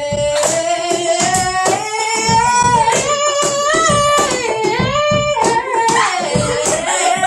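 A song with a sung melody over a steady beat.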